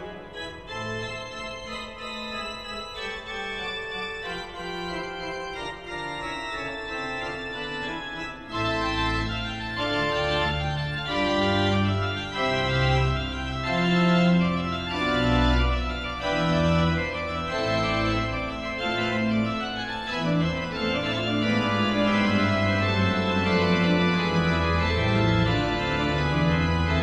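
Background instrumental music with long held keyboard-like notes; about eight seconds in, deep bass notes come in and the music grows louder.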